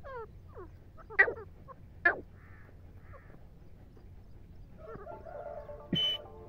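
White francolins (tetar) calling: a few quick falling chirps, then two loud, sharp calls about a second apart, and some fainter notes. Background music comes in near the end, with a sharp click.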